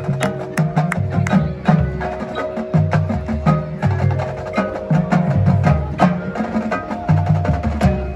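Marching band playing a percussion-heavy passage: rapid sharp clicks and a low drum pattern over sustained tones. The low drums drop out near the end, leaving the sustained tones.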